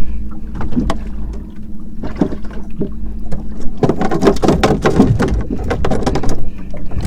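A hooked fish thrashing in a landing net on a boat, with scattered knocks, then a fast run of flapping and clattering for about two and a half seconds near the middle. The boat's motor hums steadily underneath.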